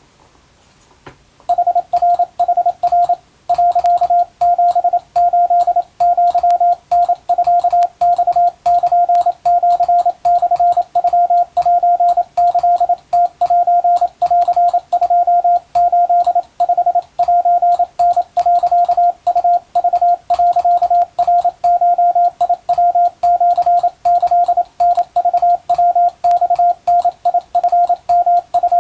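Japanese (wabun) Morse code sent as a steady single-pitched beep keyed on and off in quick dots and dashes, starting about a second and a half in.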